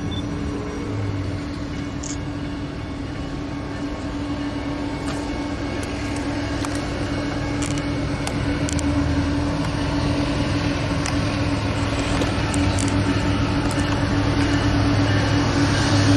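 Diesel freight locomotive approaching on the main line, its engine running with a steady drone that grows gradually louder.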